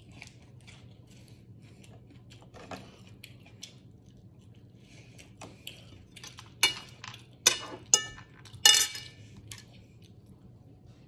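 Metal fork clinking and scraping on a ceramic dinner plate: faint small clicks at first, then four sharp, ringing clinks about six and a half to nine seconds in.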